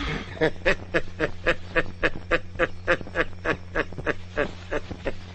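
A man's snickering laugh: a long run of short, evenly spaced 'heh' sounds, about four a second.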